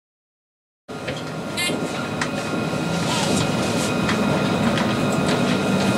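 Tram running on the rails, heard from on board: a steady rumble with a faint steady electric whine, a few clicks and a brief high tone about a second and a half in. The first second is dead silent.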